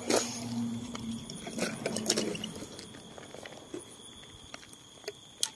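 Empty plastic drink bottles handled and knocked together on gravelly ground with dry leaves: scattered clicks, knocks and crinkles, the loudest just after the start and near the end.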